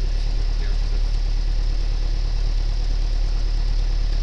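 Cessna 172 Skyhawk's piston engine and propeller running steadily, a constant drone heard from inside the cockpit.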